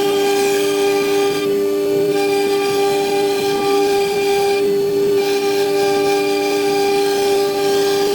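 ELECNC1325 CNC router's spindle running with a loud, steady high whine. Its upper overtones fade and return about every three and a half seconds.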